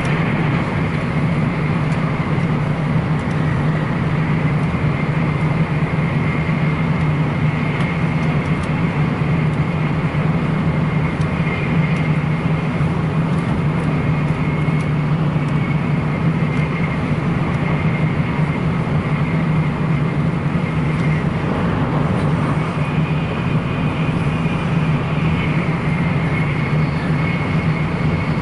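Shinkansen bullet train running at speed, heard from inside the passenger cabin: a steady low rumble with a faint high whine over it.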